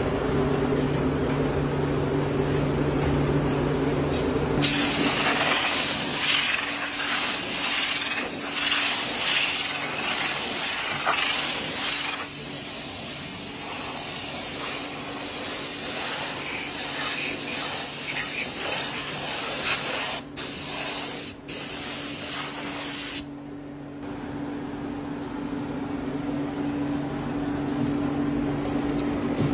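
Factory machinery humming steadily with a loud, even hiss that starts about five seconds in and cuts off suddenly some eighteen seconds later.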